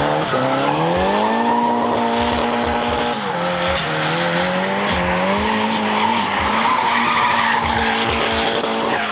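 Drift car's engine revving hard at high rpm while its tyres screech in a slide. The engine note climbs in the first second and a half, dips about three seconds in, and rises and falls several more times as the driver works the throttle.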